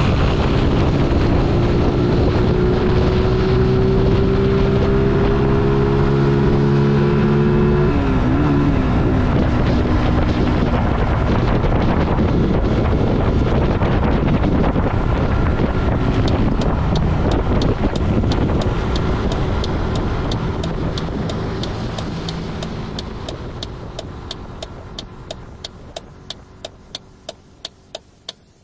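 A 125 cc motorcycle engine held at steady high revs, with wind noise on the microphone; about eight seconds in the engine note dips, and wind and road noise carry on, slowly fading out. In the second half an even ticking, about two ticks a second, comes in as the ride fades.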